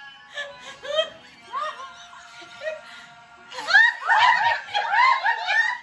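Several women laughing together over background music; the laughter breaks out loudly about three and a half seconds in.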